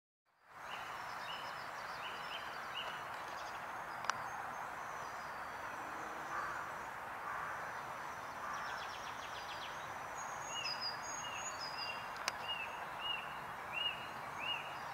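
Outdoor pond ambience: a steady background hiss with wild birds calling over it. A string of short, repeated high notes sounds near the start and again through the last few seconds, thinner, higher birdsong comes and goes, a quick rattle sounds about halfway, and there are two sharp clicks.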